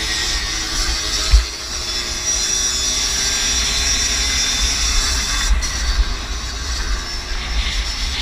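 A 50cc moped engine running hard at high revs, with a mechanical rattle and wind buffeting the microphone. A single sharp thump comes about a second and a half in.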